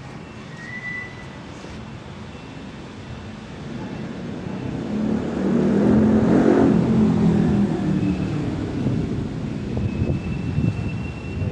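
A large engine running, swelling louder about halfway through and then staying loud.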